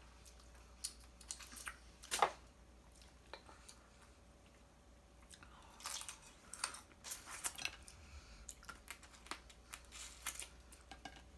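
Close-miked chewing and mouth sounds of someone eating snow crab meat pulled from the legs: wet clicks and smacks, sparse at first and busier from about six seconds in.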